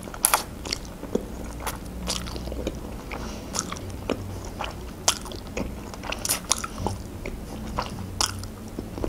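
Close-up eating sounds of a person sucking in and chewing green ribbon noodles: wet mouth smacks and clicks at irregular intervals.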